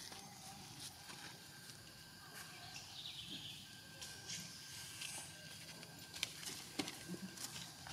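Quiet outdoor ambience with faint rustles and scattered light ticks, a few sharper clicks near the end.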